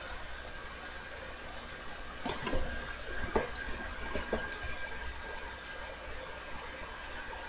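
Steady background hiss with a faint steady tone, and a few soft clicks or knocks in the middle.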